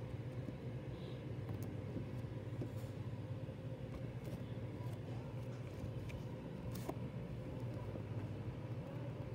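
A steady low hum with a few faint, short clicks.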